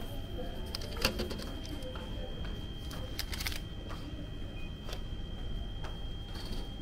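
Light clicks and paper and plastic rustles of a printed receipt and a nol card being handled at a ticket vending machine, the sharpest click about a second in and a cluster of clicks around three and a half seconds, over a steady thin high tone.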